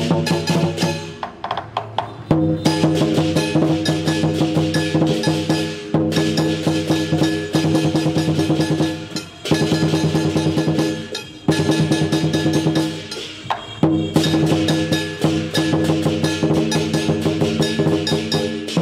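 Lion dance percussion: a large drum beaten rapidly together with clashing cymbals and a gong, whose ringing carries under the beats. It plays in fast phrases broken by short pauses every few seconds.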